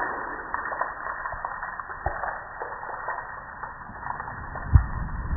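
Water dripping and spattering off a soaked gas grill onto concrete, with scattered light knocks and one heavy thump near the end.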